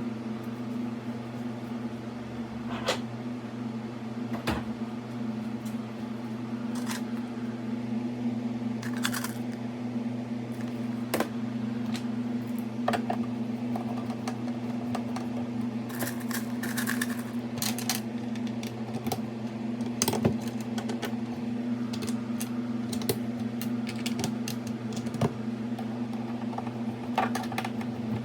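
A steady low electrical hum, like a fan or appliance running, with scattered clicks and knocks of small hard parts being handled.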